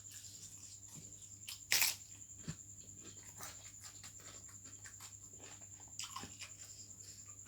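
Close-up eating sounds: wet chewing and small clicks and crunches as pigeon and chicken-head bones are bitten, with a short louder rush of noise a little under two seconds in. A faint steady high whine runs underneath.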